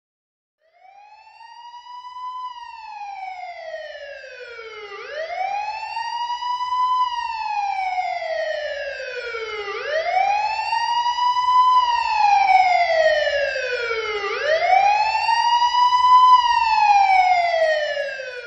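Police car siren in a slow wail, its pitch climbing and falling back about once every four to five seconds, four rises in all. It starts about a second in and grows steadily louder, as if approaching.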